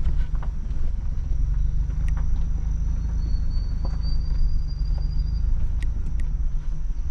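Ford Bronco driving slowly over a gravel track with the top off: a steady low engine drone, with scattered sharp ticks from stones and the body over the rough ground.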